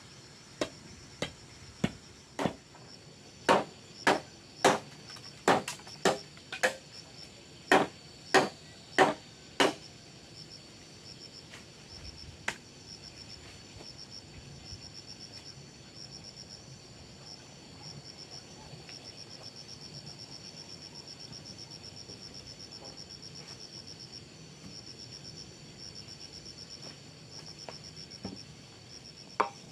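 A run of sharp knocks, about one every half second for the first ten seconds, as a bamboo pole is jabbed down into the ground. After that, only a steady pulsing buzz of insects goes on.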